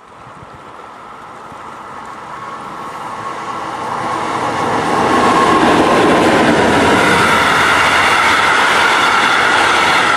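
Passenger train approaching and passing close by, its wheels running on the rails, growing louder for about five seconds and then holding steady as the coaches go past.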